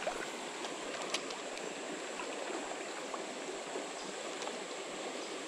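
Small creek running: a steady wash of flowing water, with a few faint ticks.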